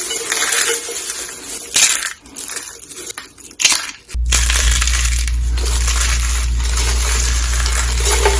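Dry soap roses and curls being crushed, crunching and crackling in irregular bursts. About halfway through the sound switches abruptly to a steady, denser crackle with a low hum underneath.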